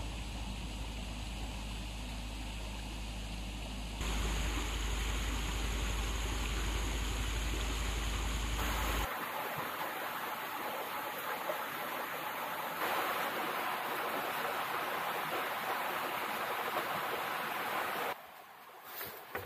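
For the first nine seconds a low rumble runs under a hiss. It then gives way abruptly to the steady rush of a flowing stream, which stops suddenly near the end.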